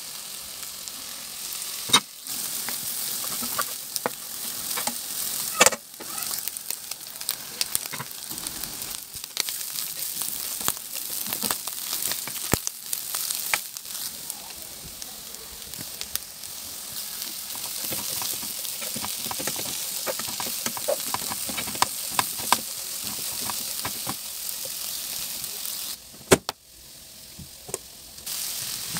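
Vegetables stir-frying in a hot pan: a steady sizzle with frequent clicks and scrapes of a plastic spoon stirring against the pan, and a few louder knocks. The sizzle drops away briefly near the end.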